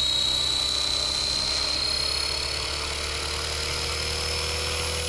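Blade Fusion 360 Smart electric RC helicopter spooled up in idle-up mode: a steady high motor whine over a low rotor hum, its pitch creeping slowly upward as the head speed comes up.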